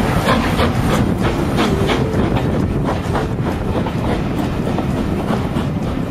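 A train carriage running along the track at low speed, heard from aboard: a steady rumble with frequent irregular clicks and knocks from the wheels and running gear.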